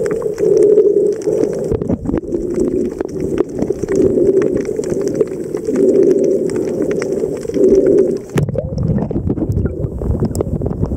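Underwater sound recorded by a snorkeler's camera: a muffled, wavering hum that swells and fades, with scattered crackling clicks. About eight seconds in it cuts to a lower, rumbling water noise.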